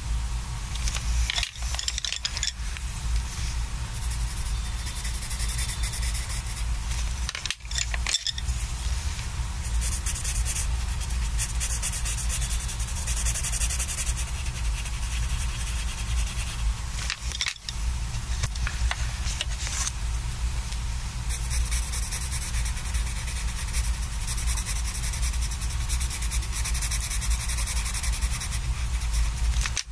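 Prismacolor colored pencil shading on sketchbook paper: a steady, scratchy rubbing of the pencil tip back and forth, breaking off briefly three times as the pencil lifts or is swapped.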